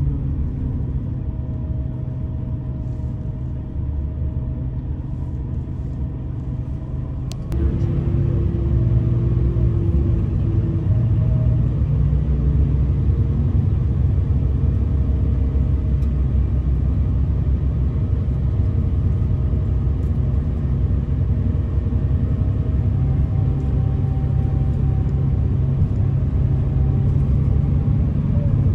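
Steady diesel engine and road rumble inside a moving Scania K340EB4 / Irizar Century coach, heard from a passenger seat; it gets louder about seven and a half seconds in.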